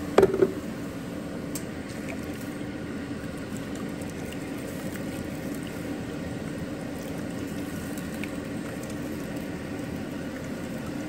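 Blended chile sauce draining through a plastic colander into a pan on the stove: a steady liquid dribbling and simmering sound. A short, loud knock comes right at the start.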